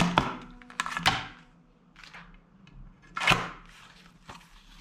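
Plastic clicks and taps from a toy katana being handled, then a short scraping slide about three seconds in as the blade goes into its plastic sheath.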